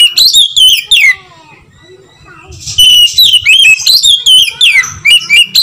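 Oriental magpie-robin (kacer) singing loud, rapid runs of whistled notes that slide up and down. One burst ends about a second in, and after a pause of about a second and a half a longer burst starts.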